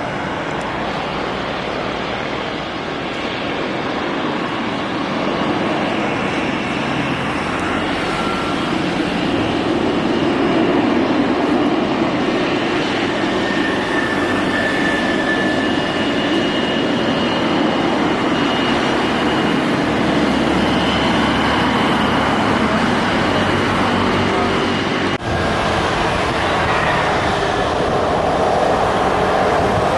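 Steady jet-engine roar of a Boeing 737 airliner, growing louder about ten seconds in, with faint high whining tones over the rumble.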